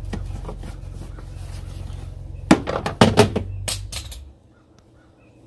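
Screwdriver and plastic fasteners on a car's air-intake cover clicking and knocking as they are pried loose, a quick run of sharp clicks about two and a half to four seconds in. Underneath is a steady low rumble that cuts off abruptly a little after four seconds.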